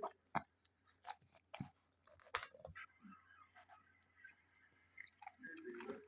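A pet rabbit chewing, a scatter of faint, irregular short crunches and clicks.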